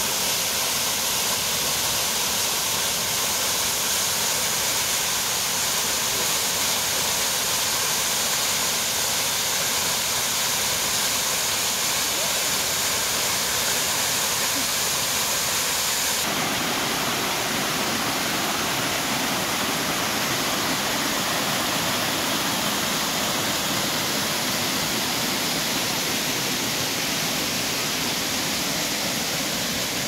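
Water cascading over a rocky waterfall, a steady loud rush of falling water. About halfway through the sound changes abruptly to a fuller, lower rush of water racing down a narrow stone channel.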